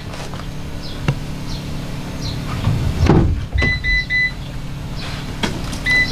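Van engine running with a steady low hum after being started, and an electronic chime beeping in two quick runs of three, about three and a half seconds in and again at the end.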